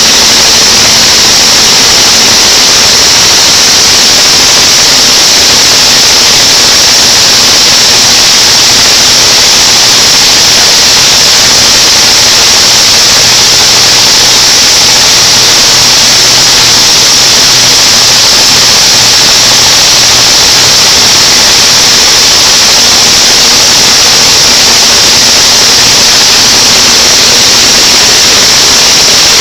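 Plastic drying machine's high-pressure blower running: a loud, steady rush of air, strongest as a high hiss, with a faint low hum underneath.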